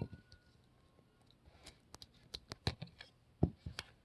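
Small clicks and taps from handling cell phones and pressing their keypad buttons: about a dozen sharp clicks, most of them in the second half.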